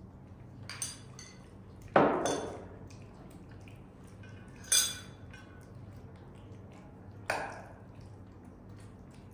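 Utensil clinking against a dish: four sharp knocks, the loudest about two seconds in and ringing briefly.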